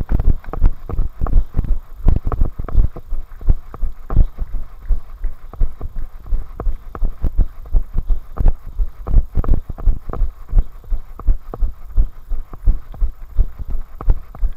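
A runner's footfalls on a tarmac path, heard close up while running: a steady rhythm of low thumps at about three strides a second.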